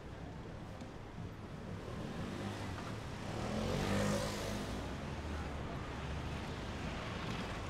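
City street traffic rumbling steadily, with one motor vehicle passing close about four seconds in, its engine note swelling and then fading.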